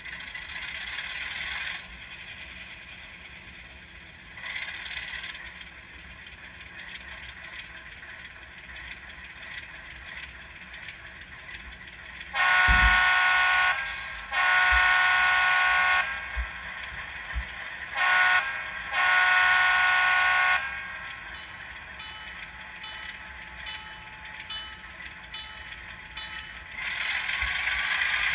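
Digital sound decoder in an HO scale RS3 model locomotive, playing through the model's small speaker: a steady diesel idle with two short hisses, then the horn sounding long, long, short, long, the grade-crossing signal. Lighter quick ticking and another hiss follow.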